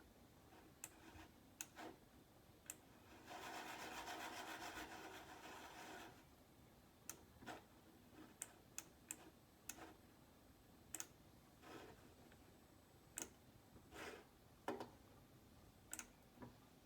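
Faint scattered clicks and taps, with a rubbing sound lasting about three seconds that starts a little over three seconds in.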